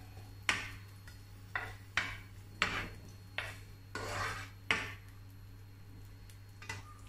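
A black plastic spoon knocking and scraping against a grey nonstick frying pan while it pushes garlic and basil about in the oil: about seven sharp taps and short scrapes in the first five seconds, then quiet over a steady low hum.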